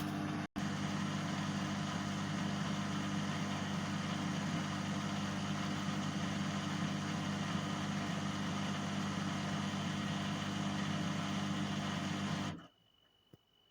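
Bosch Exxcel 1400 S Express washing machine's drain pump running on a drain program, a steady hum that stops abruptly near the end.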